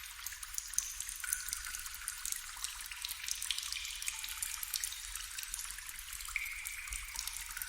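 Water trickling and dripping, a thin, steady hiss dotted with many small clicks.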